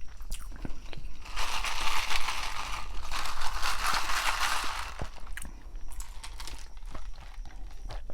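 Close-miked crunching and chewing of a grinder sandwich, heaviest in a stretch from about one to five seconds in, then lighter scattered mouth clicks.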